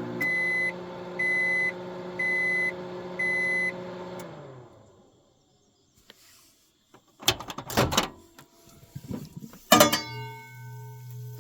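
Microwave oven running with a steady hum, beeping four times about once a second as its cooking time ends, then its hum winding down with falling pitch. A few seconds later come two loud clunks.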